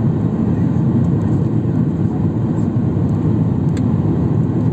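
Steady low rumble of an airliner in flight, heard inside the cabin: engine and airflow noise.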